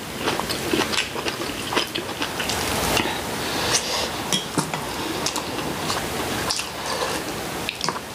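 Two people eating at close range: chewing and slurping soup from spoons, with many small clicks of chopsticks and spoons against ceramic bowls and plates.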